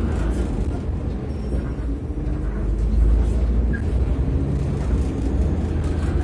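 Hyundai Global 900 CNG city bus engine running, a steady low rumble with a faint hum, heard from inside the passenger cabin; it swells slightly about three seconds in.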